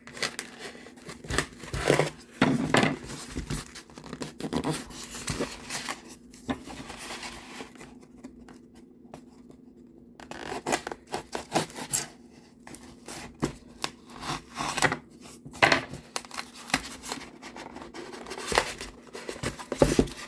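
A heavily taped parcel being cut into and pulled open: irregular scratching, scraping and tearing of tape and packaging, with a quieter pause partway through.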